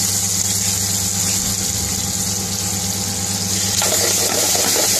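Onion, green pepper and curry powder sizzling in oil in a frying pan, a steady hiss over a steady mechanical hum.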